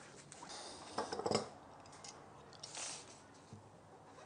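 A sheet of paper rustling as it is handled, loudest about a second in, and a short crisp hiss as a freshly honed Stanley No. 4 plane iron slices through it: a paper test of the blade's sharpness.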